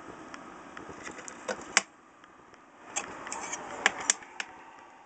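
Small metal clock parts being handled on a table: scattered light clicks and taps. The sharpest comes just under two seconds in, and a few more follow close together about three to four seconds in.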